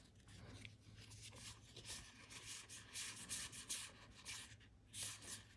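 Faint, soft swishes of Magic: The Gathering trading cards sliding and rubbing against each other as a freshly opened booster pack is fanned through by hand.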